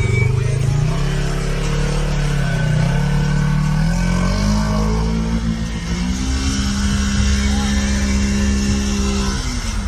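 Side-by-side UTV engine revving under load as it drives through a flooded pond, its pitch climbing in steps over the first six seconds and then holding high, with water splashing. The engine note stops shortly before the end.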